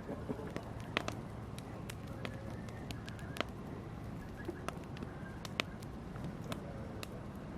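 Wood fire burning: a steady low rumble of flames with irregular sharp crackles and pops, the loudest about a second in and about five and a half seconds in.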